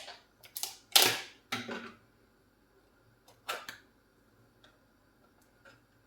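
A few short knocks and scrapes of objects being handled, the loudest about a second in and another a little past the middle, then only faint ticks.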